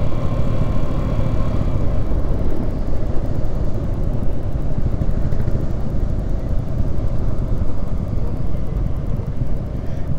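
Yamaha R15M motorcycle on the move, heard mostly as a steady wind rumble over the GoPro microphone. A faint engine tone fades out about two seconds in.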